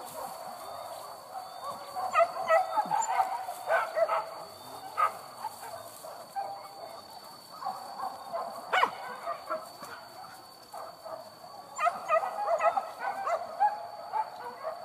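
Pack of hunting dogs barking and yelping in quick clusters of short calls, busiest about two to five seconds in and again near the end, with one sharp bark a little past the middle.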